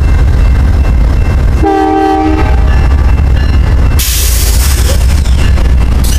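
Amtrak GE Genesis diesel locomotive's engine running with a deep, steady rumble. A short blast of its multi-note air horn sounds about a second and a half in. About four seconds in, a loud hiss of compressed air starts and lasts about two seconds.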